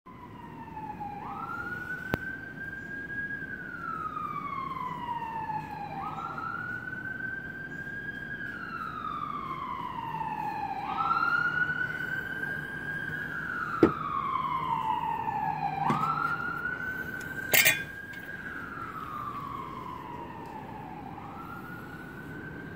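Emergency vehicle siren wailing, each cycle rising quickly, holding, then falling slowly, about every five seconds. A few sharp clicks or knocks sound over it, the loudest about fourteen seconds in.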